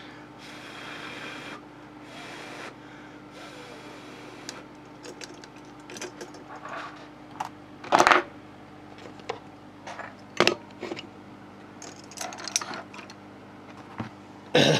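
Handling noise on a desk: small metal clinks, knocks and rattles as a freshly soldered PL259 connector on its coax and a soldering gun are picked up and moved, the loudest knock about eight seconds in. Three short hisses come in the first few seconds, over a faint steady hum.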